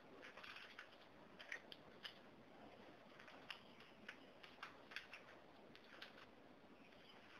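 Faint, irregularly spaced clicks of computer keyboard keys pressed one at a time, over a low hiss.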